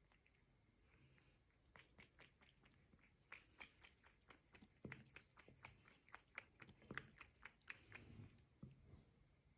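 A cat lapping water from a thin stream running from a sink tap: faint, quick wet clicks of the tongue, about four a second, starting a couple of seconds in and stopping near the end.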